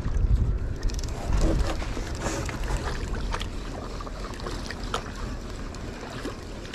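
Wind buffeting the microphone with a low, gusting rumble, over a few short splashes and knocks of a plastic paddle being stroked through the water beside a small boat.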